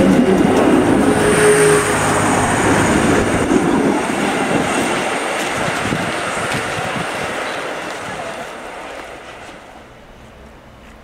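A DB Class 628 diesel multiple unit pulls out close by: diesel engine and wheels on the rails, with a short whine about a second and a half in. The sound fades steadily over several seconds as the train moves away down the line.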